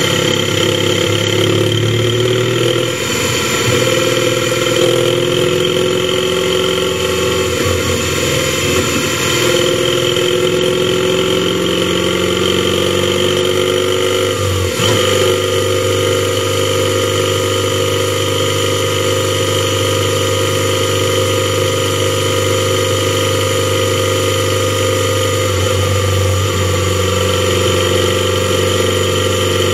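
Motorcycle engine running steadily at cruising speed, heard from a helmet-mounted camera, with a brief change in the engine note about halfway through.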